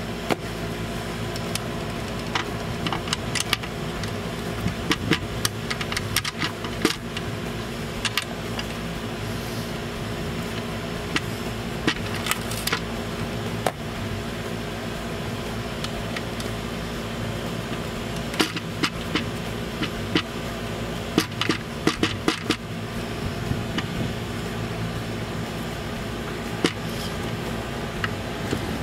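A steady mechanical hum with several constant tones, overlaid by scattered sharp metallic clicks and taps of engine parts and hand tools being handled, several in quick clusters.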